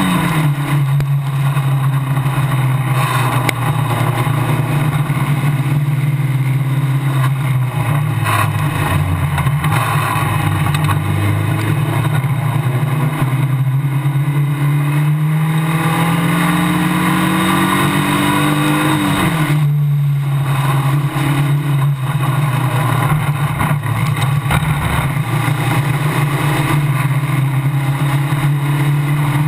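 Formula Basic single-seater race car engine heard onboard at racing speed, with wind noise over it. The pitch drops sharply right at the start and again about two-thirds of the way in, and climbs slowly in between as the car accelerates.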